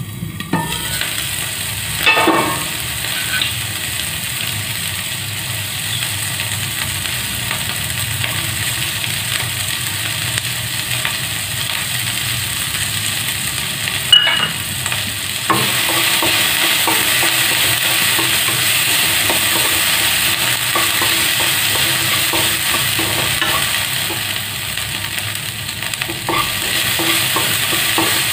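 Chopped vegetables sizzling in oil in a kadai while a spatula stirs and scrapes the pan. The sizzle jumps up as the lid comes off at the start and gets louder again about halfway through, with a few sharp clanks against the pan.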